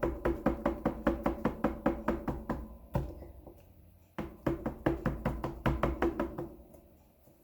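Rapid light tapping, about six taps a second, in two runs with a single tap and a pause of about a second and a half between them: an ink pad being dabbed onto a stamp to ink it before stamping.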